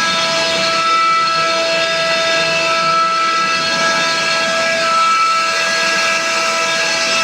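CNC router spindle running and cutting: a steady, high whine made of several held tones over a constant cutting noise, the tones shifting slightly in strength as the cut goes on.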